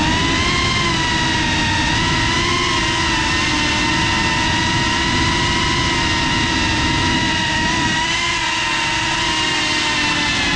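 FPV quadcopter's brushless motors and propellers whining with a steady pitch that dips and shifts slightly with throttle changes near the start and near the end, over a rush of wind noise.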